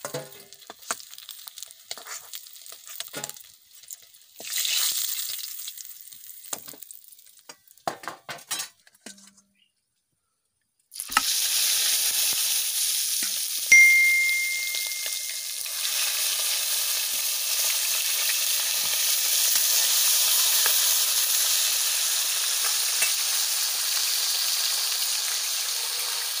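Whole silver carp deep-frying in hot oil in a kadai, a loud steady sizzle. In the first few seconds the sizzle is quieter and broken by scattered clinks of a steel ladle against the pan, as the fried fish are lifted out.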